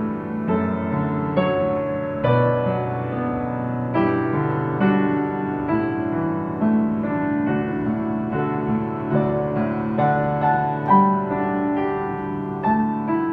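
Calm piano music playing held chords, a new chord struck about once a second: prelude music before a worship service begins.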